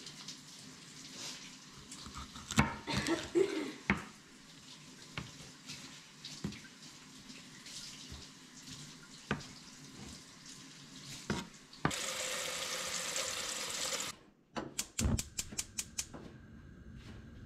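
A kitchen knife chops a whole fish into chunks on a wooden cutting board: irregular knocks, the heaviest a cluster about three seconds in. Near the end a tap runs for about two seconds, then a gas stove's burner igniter clicks several times in quick succession.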